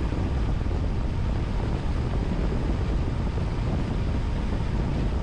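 Steady road and wind noise from a vehicle driving at speed on a paved road, a continuous rushing with most of its weight in the low end.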